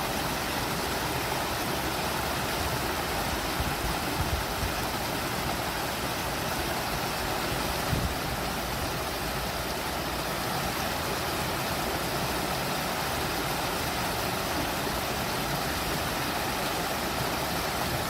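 Water rushing steadily in an artificial garden waterfall and stream, an even hiss with a couple of brief low bumps.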